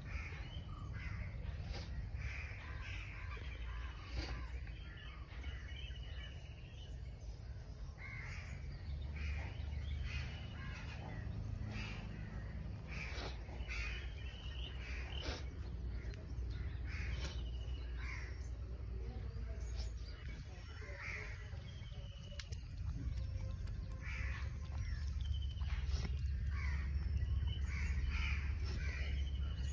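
Repeated short, harsh animal calls, caw-like, scattered through the whole stretch over a steady high-pitched whine and low rumble.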